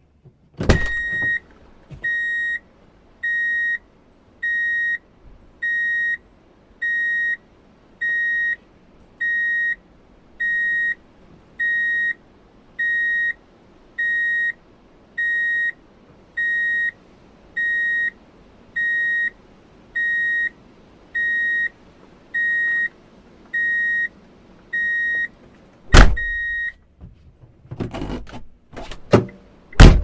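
Car alarm beeping: a single steady high tone repeating about once every 1.2 seconds, around twenty times. A loud thump comes just before the beeps start and another as they stop, and a few more sharp knocks follow near the end.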